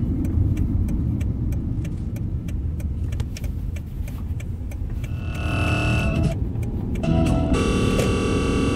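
Radio interference from a receiver: low rumbling static with quick irregular clicks, then a pitched warbling tone about five seconds in and a buzz with many overtones from about seven and a half seconds.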